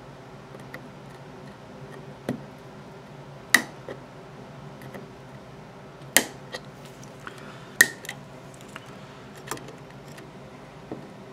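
Flush side cutters snipping through the legs of a DIP integrated circuit on a printed circuit board, one pin at a time: a series of sharp clicks spread irregularly, about seven snips, the loudest a few seconds in. The legs are being cut so the old horizontal driver chip can come off a double-sided board without pulling its plated holes.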